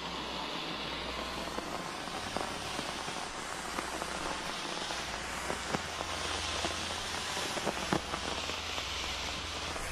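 Handheld smoke grenade burning with a steady crackling hiss, with a few sharp snaps mixed in.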